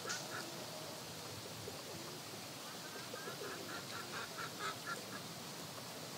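Birds calling: a couple of short calls at the start, then a quick run of about eight short calls around the middle, over a steady background hiss.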